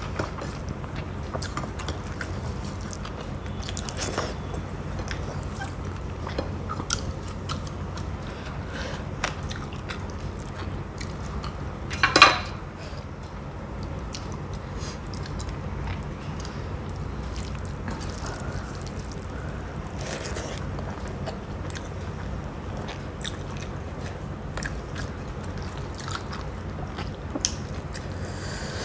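Close-up eating sounds: a person chewing and biting rice and fried fish, with many small wet mouth clicks. A steady low hum runs underneath, and one louder short sound comes about twelve seconds in.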